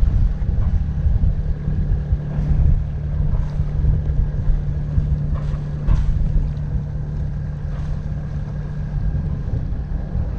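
Sailboat's inboard engine running steadily as the boat motors under bare poles, with wind buffeting the microphone.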